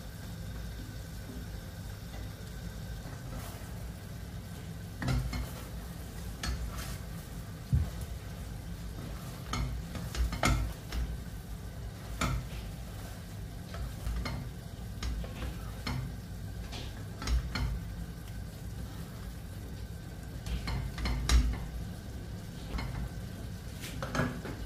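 A spatula stirring and tossing chicken, onions and scallions in a stainless steel pan over frying heat, with irregular knocks and scrapes against the pan starting a few seconds in, over a steady low hum and sizzle.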